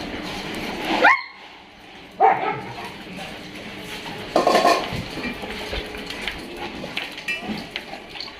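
Dogs barking in a few short, separate barks, about one, two and four seconds in.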